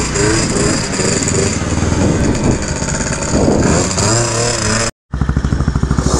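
Two-stroke scooter engines running, with rising and falling revs. After a brief cut-out about five seconds in, one engine idles with a steady pulsing beat.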